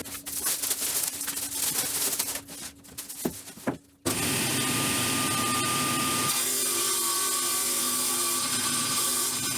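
Wood scraping and sliding for a few seconds over a faint machine hum, then, after an abrupt break about four seconds in, a power saw running steadily as it rips a wooden board lengthwise.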